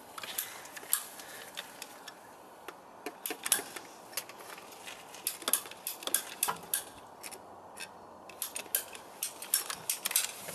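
Hand pipe cutter working on a 40 mm plastic waste pipe: a run of sharp, irregular clicks.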